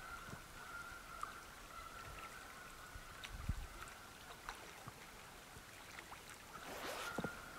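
Faint steady rush of river water flowing, with a few small ticks and a single low thump about three and a half seconds in.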